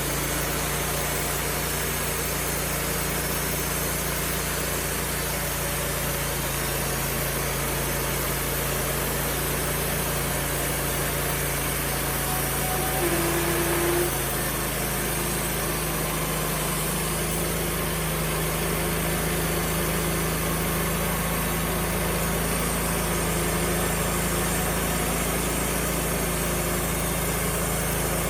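Wood-Mizer LT35HD sawmill's gas engine running steadily, with a brief higher-pitched tone about halfway through.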